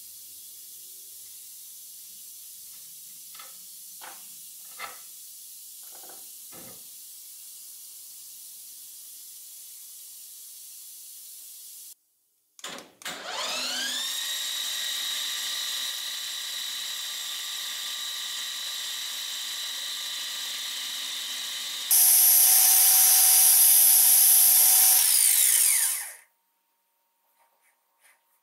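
Small metal lathe motor starting up with a rising whine and settling into a steady running whine. It then runs much louder and harsher for about four seconds before winding down and stopping. Earlier there is only a faint steady hiss with a few light clicks.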